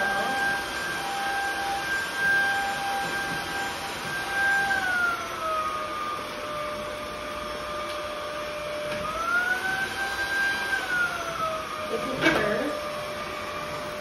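Lacidoll cordless wet-dry stick vacuum running over a hardwood floor: a steady motor whine over rushing air. The whine drops in pitch about five seconds in, climbs back up around nine seconds and drops again near eleven, with one short knock about twelve seconds in.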